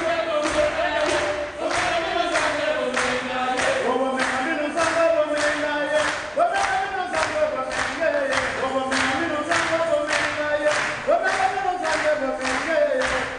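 A group of voices singing a chant together over a steady beat of sharp percussive strikes, a little over two a second.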